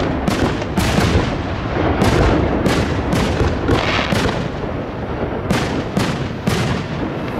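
Aerial firework shells bursting in quick succession: sharp bangs, roughly two a second, over a continuous rumble of overlapping booms, with a short lull about four seconds in.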